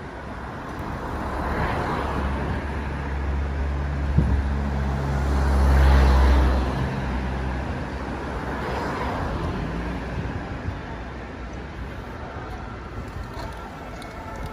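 Street traffic: several vehicles passing one after another. The loudest is a heavy engine with a deep hum that swells and peaks about six seconds in, with a single knock shortly before it.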